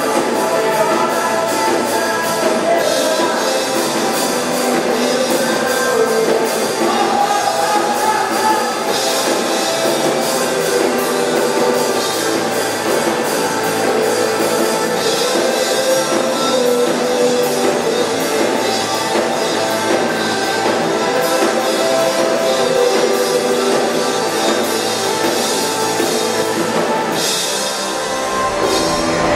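Rock music from a band with drum kit and electric guitar, playing steadily at a driving beat.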